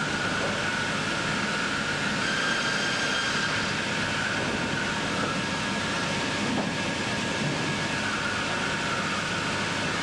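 Sawmill band-saw line machinery running steadily, a constant mechanical noise with a faint steady whine over it.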